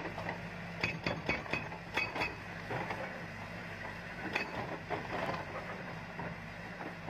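Hydraulic excavator's diesel engine running steadily while its bucket knocks and scrapes at brickwork, with sharp knocks and clinks of brick. The knocks come in a cluster in the first couple of seconds and a few more about four to five seconds in.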